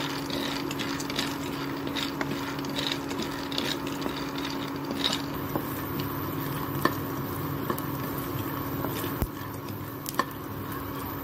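Peanuts being roasted in a nonstick kadhai and stirred with a spatula: the nuts rattle and click against the pan with each stroke, with a few louder clicks in the second half. A steady low hum runs underneath.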